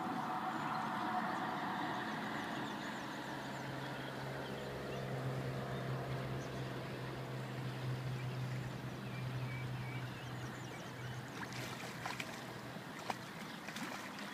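Steady rush of river water around a wading angler, with a low steady hum through the middle. Near the end come a few sharp splashes as the hooked fish thrashes at the surface.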